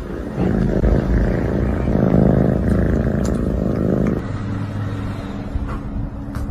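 Domestic cat purring loudly, close up, as a steady low rumble. It changes abruptly about four seconds in to a quieter, steadier hum.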